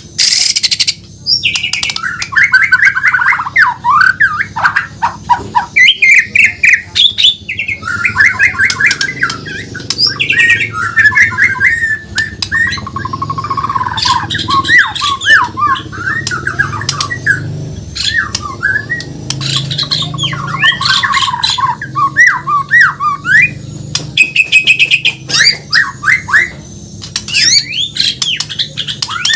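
White-rumped shama (murai batu), Borneo form, singing a long, varied song of rapid trilled runs and sweeping whistled notes, with sharp clicks between the phrases.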